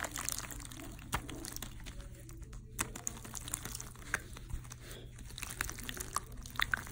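Soft, watery jiggly slime being pressed and squished flat by hand on paper, making scattered small wet clicks and crackles that sound like water.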